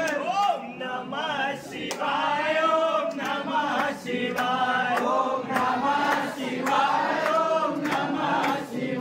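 A crowd of worshippers chanting together, many voices at once, in phrases with short breaks between them.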